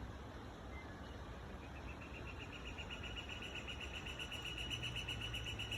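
Outdoor ambience with a low steady rumble. About one and a half seconds in, a rapid, even, high-pitched trill starts and grows louder.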